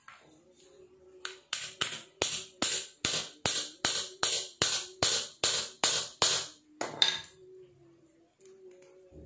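A hammer tapping on a small cast-iron pillow block bearing: a run of about sixteen sharp taps, roughly three a second, then one last tap about a second later.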